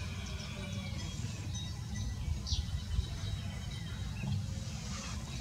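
Outdoor rural ambience: a steady low rumble with high bird chirps and short falling calls over it, one call about two and a half seconds in.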